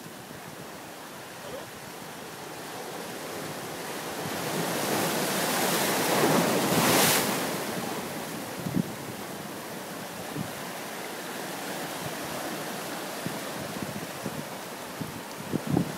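Sea surf breaking on the shore: a wave builds into a loud rushing wash about six to seven seconds in, then falls back to a steady surge, with wind buffeting the microphone.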